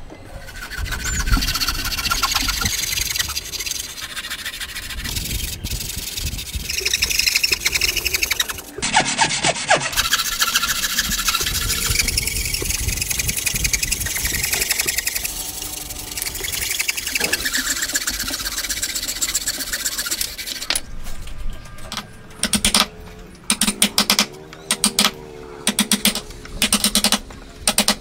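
Hand tools cutting wood: long stretches of rough scraping and rasping strokes from a hand plane and a handsaw working the board. Near the end, a run of short, separate strokes as a chisel works waste out of the joint.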